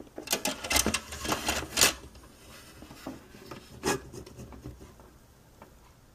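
Hard plastic model-kit parts clicking, scraping and knocking as they are handled and pressed together on a 1/35 scale boat hull. A rapid cluster of sharp clicks and rubs fills the first two seconds, then a single knock comes about four seconds in.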